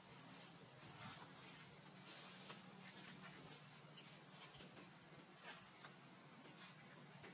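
Steady high-pitched drone of insects, one unbroken shrill tone.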